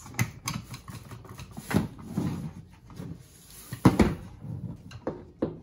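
Hard plastic and metal knocks and clicks as a rear wheel and axle rod are worked onto a Huffy toddler scooter's frame, with the loudest knock about four seconds in.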